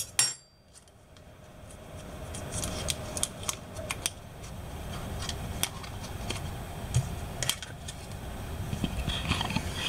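Paper wrapper of a stick of butter being peeled back and handled, giving scattered small crinkles and clicks, with one sharp click at the very start.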